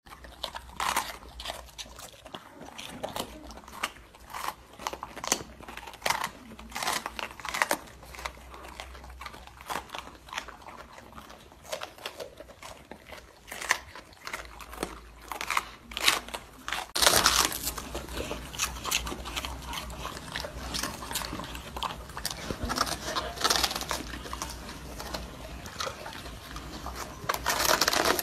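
Two golden retrievers, an adult and a puppy, crunching and chewing raw vegetables, first green bell peppers and later napa cabbage, with irregular crisp bites and wet chewing. The crunching becomes louder and denser after about 17 seconds.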